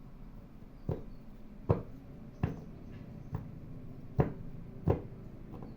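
Six light, sharp taps, roughly one every three-quarters of a second, over quiet room noise.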